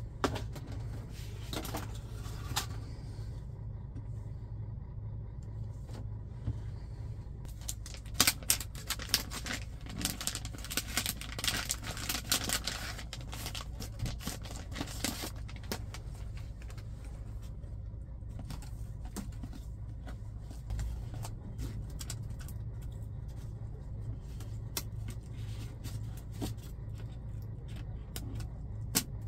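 Clear anti-static plastic bag crinkling and crackling as it is handled, in a dense run from about eight to sixteen seconds in, with lighter handling clicks elsewhere, over a steady low hum.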